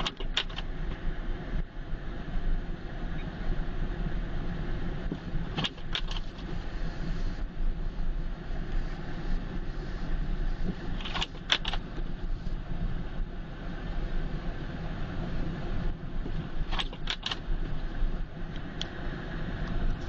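Car driving on a snow-covered road, heard from inside the cabin: a steady low rumble of engine and tyres. Short clusters of two or three sharp clicks come at regular intervals, about every five and a half seconds.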